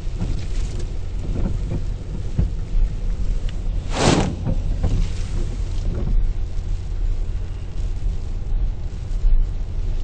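Gale-force storm wind, with gusts of 50–60 mph, rumbling heavily and steadily on the microphone, with surf breaking under it. A loud rushing surge comes about four seconds in.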